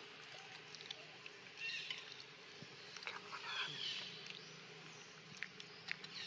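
Short high-pitched animal chirps, twice, about two and three seconds in, with scattered light ticks and a faint steady background hum.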